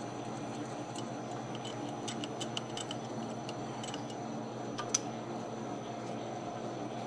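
Metal lathe running with a twist drill boring into a motorcycle crankshaft half: a steady hum with scattered light ticks and clicks, and a sharper click about five seconds in. The drill is passing through the keyway slot, where it tends to grab.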